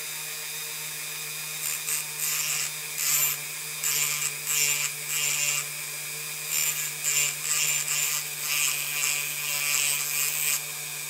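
Handheld rotary tool running with a steady hum while its cut-off wheel grinds into the front of a diecast toy truck, cutting away a second set of headlights. The grinding comes in short, repeated bouts from about a second and a half in, as the disc is pressed on and eased off.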